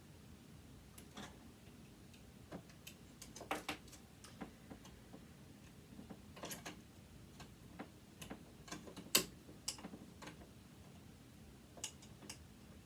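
Irregular small clicks and taps of hand tools against the metal parts of a sewing machine motor being dismantled, some in quick clusters, with the sharpest click about nine seconds in.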